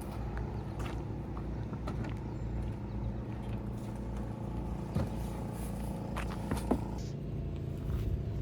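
Steady drone of a motor vehicle's engine and road noise heard from inside the cabin while driving, with a few light clicks and knocks, the sharpest about five seconds and six and a half seconds in.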